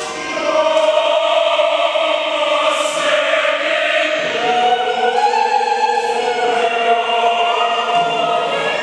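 A choir singing long held chords, the harmony shifting a little over four seconds in.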